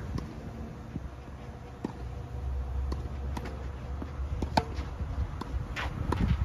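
Tennis rally: a series of sharp pops of rackets hitting the ball and the ball bouncing on the court, the loudest about four and a half seconds in, over a low rumble of wind on the microphone.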